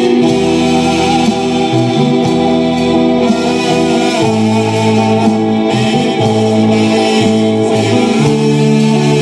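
Live worship band playing a Spanish praise song: electric guitar and keyboard holding chords over a bass line, with voices singing. The chord changes about four seconds in.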